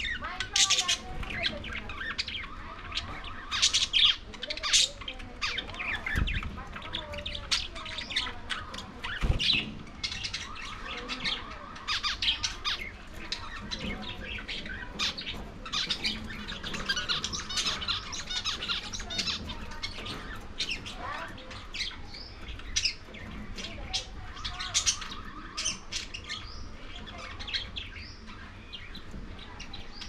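A flock of small parrots, budgerigars and lovebirds, chirping and squawking nonstop, with many short calls overlapping. Two dull low knocks come about six and nine seconds in.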